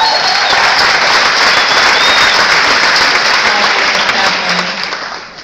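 Audience applauding: dense clapping from a large crowd that tapers off near the end, with a brief high cheer at the start.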